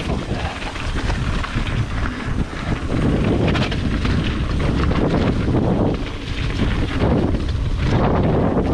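Wind buffeting a GoPro's microphone on a fast mountain-bike descent, with tyre roar and the clatter and rattle of a full-suspension bike over rough, wet trail.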